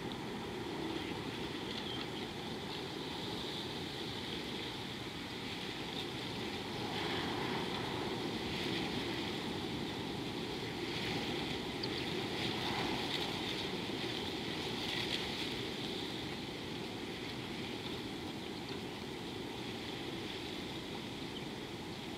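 Steady outdoor background noise: a wind-like rushing with a steady high hiss over it, swelling a little in the middle.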